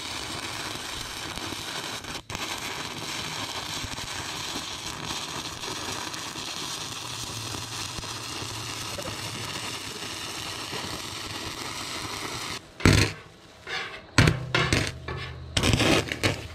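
Stick welding arc on the steel bucket of a wheel loader: a steady sizzling hiss, broken by louder irregular crackling bursts in the last few seconds.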